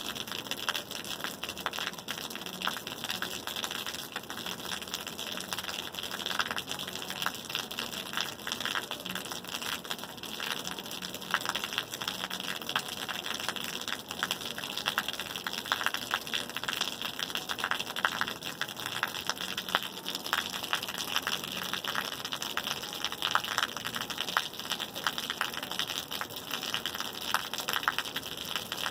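Steady rain: a dense, even hiss of falling water with many small sharp drop ticks scattered through it.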